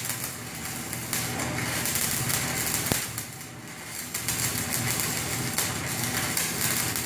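Stick-welding arc from a coated electrode crackling and sizzling steadily, easing off briefly around the middle before picking up again.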